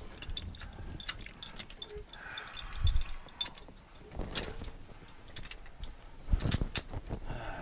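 Light metal clicks and clinks as a slide-hammer seal puller is fitted into a rear axle seal, with a few heavier knocks about three, four and six and a half seconds in.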